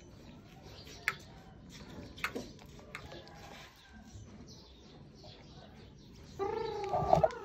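Faint small clicks and rustling, then a dog starts a long, wavering whine or cry near the end.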